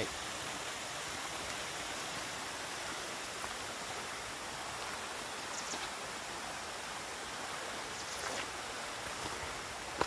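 Small waterfall: water running down over rocks into a pool, a steady rushing hiss, with a few faint high clicks over it.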